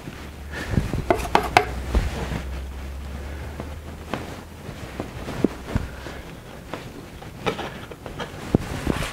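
Steel palette knife tapping and scraping thick oil paint onto a stretched canvas: scattered sharp taps and short scrapes, the loudest cluster about a second in. A low hum runs underneath and stops about six seconds in.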